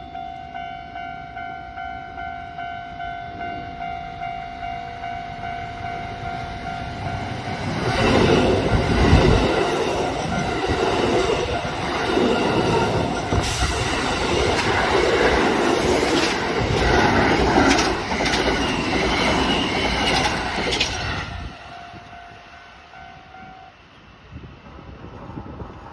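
Japanese level-crossing warning bell ringing in a steady, rapid ding-ding, then a Kintetsu electric train passes over the crossing for about thirteen seconds, loud with clattering wheels that drown out the bell. After the train the bell rings on briefly and stops about two seconds before the end.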